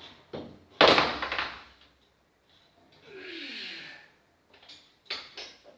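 Prone leg-curl machine worked through repetitions: a loud clank about a second in, then a hiss with a falling squeak around the middle, and sharp clicks near the end.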